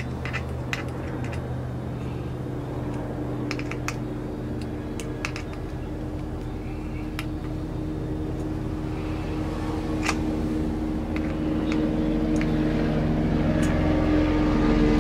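A steady engine drone that slowly grows louder, with scattered light clicks and taps of plastic intake parts being handled and fitted together.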